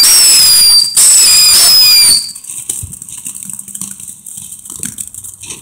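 Killer Bee firework screaming with loud, shrill whistles that fall slightly in pitch, in two stretches of about a second each. It stops a little after two seconds in, leaving only faint crackles and pops.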